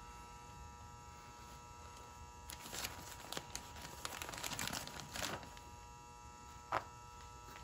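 Sheet of newspaper rustling and crinkling as it is folded up, from about two and a half seconds in until just past five seconds, over a steady electrical hum. A single short tick near the end.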